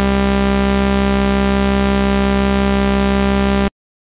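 A steady, buzzing synthesized tone built from sawtooth waves, the audio signal that drives the oscilloscope drawing. It cuts off suddenly shortly before the end.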